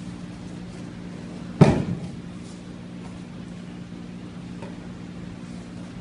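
A body hitting the mat in an aikido breakfall: one loud slapping thud about a second and a half in, followed by a couple of smaller knocks, over a steady low hum.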